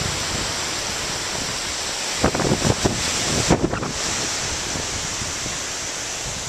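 Ocean surf washing in below a pier, a steady rushing wash, with wind buffeting the microphone in gusts about two to four seconds in.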